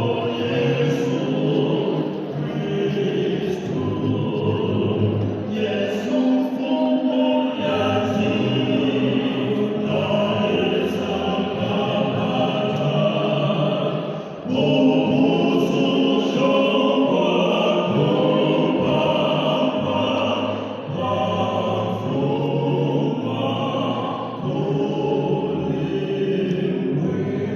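Vocal quartet singing a song in several-part harmony, with a short break about halfway through before the next phrase comes in louder.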